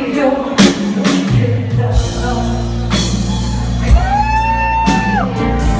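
Live rock band playing, heard from the audience in a large hall: drum hits over steady bass and guitar. About four seconds in, a long high note slides up, holds, then drops away.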